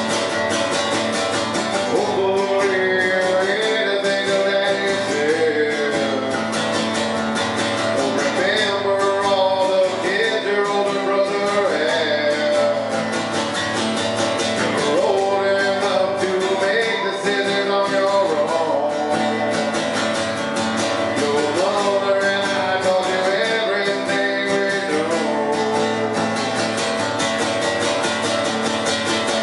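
Strummed acoustic guitar played live, with a man singing over it from about two seconds in.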